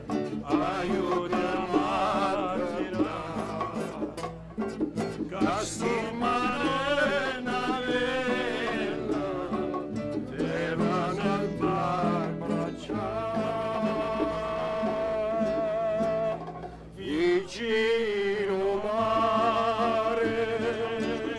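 A man singing a slow song with vibrato, accompanying himself on a nylon-string classical guitar.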